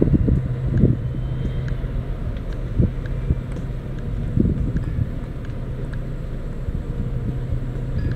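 Vehicle engine hum and road rumble, steady and low, with a handful of short bumps and knocks scattered through.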